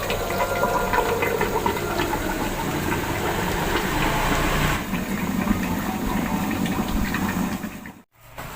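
Steady hiss of a pot of rendang cooking over a low gas flame, with scattered light ticks and pops; the sound cuts off abruptly near the end.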